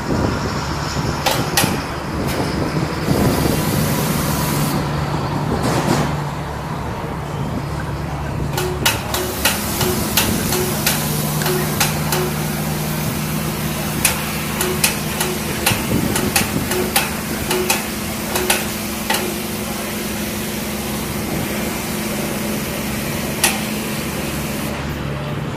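Metal clanks and knocks from work on an M1 Abrams tank, many in quick succession through the middle, over a steady machine hum that shifts and briefly drops about a quarter of the way in.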